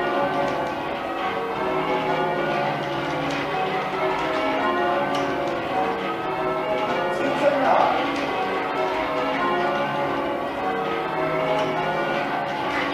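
A ring of ten church bells being rung in changes by hand: a continuous, even stream of bell strokes, one bell after another, with a brief louder burst about seven and a half seconds in.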